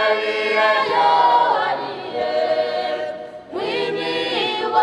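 Unaccompanied choir singing, several voices holding long notes together; one phrase ends about three and a half seconds in and the next begins.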